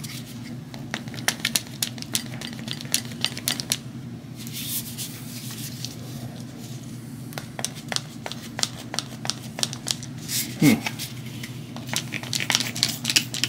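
Plastic trigger spray bottle pumped again and again with its nozzle pressed against a film cleaner pad. It gives an irregular run of small sharp clicks as the pad is soaked with cleaning fluid.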